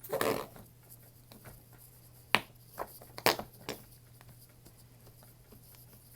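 Slime being handled in its container: a short rustle at the start, then a few sharp clicks and pops in the middle, with faint steady hum between.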